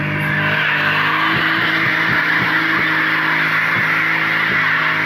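A car doing a burnout: its spinning tyres screech steadily against the road while the engine is held at high revs.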